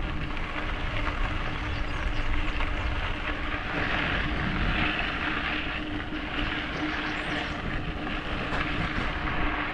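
Steady rushing noise of riding a loaded bicycle on a packed dirt road: wind on the microphone and tyres rolling over the dirt, with a faint steady hum underneath.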